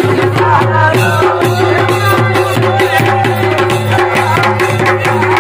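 Kumaoni folk band of dhol and damau drums with a masakbeen bagpipe playing: the bagpipe's steady drones under a wavering melody, over a dense, fast drum beat.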